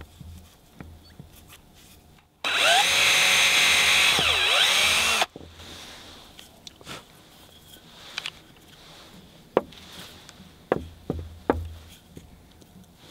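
A power drill runs for about three seconds, starting and stopping sharply, its pitch dipping and rising as it works into wood. Scattered knocks and clicks follow.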